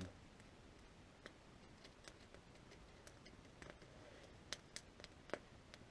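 Campfire of dry beech wood crackling: scattered sharp pops and ticks at irregular intervals over a faint hiss.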